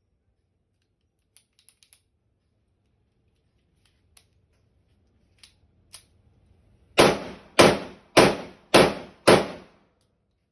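TT-pattern pistol test-fired: five rapid shots about half a second apart, preceded by a few faint clicks.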